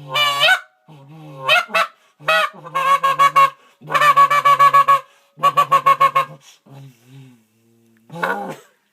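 Canada goose flute call blown in a series of honks: longer honks that break upward in pitch, then quick strings of short clucks, and one more honk near the end.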